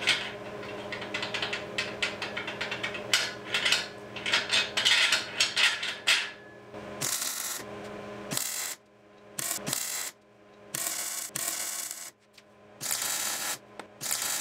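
Miller-Matic 185 MIG welder laying a run of tack welds on steel: several separate bursts of arc noise, each about half a second to a second long, in the second half. Before the tacks come knocks and scraping of metal being handled, over a steady low hum.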